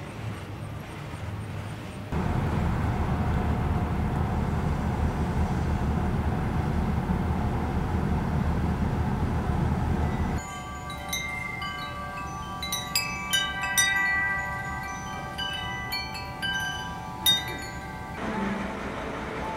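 Metal wind chimes ringing, their tubes struck again and again and each note ringing on, starting about ten seconds in and stopping abruptly near the end. Before them, a steady low rumble fills the first half.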